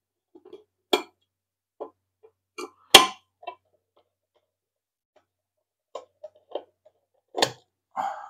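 Scattered clicks and knocks from hands handling and working at the screws of a 3D-printed plastic scale housing. The loudest is a single sharp knock about three seconds in.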